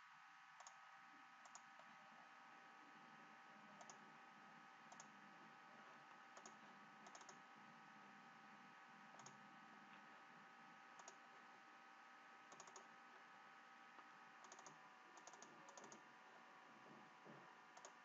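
Faint computer mouse clicks, a dozen or so spread irregularly, some in quick pairs like double-clicks, over near-silent room tone with a faint steady hum.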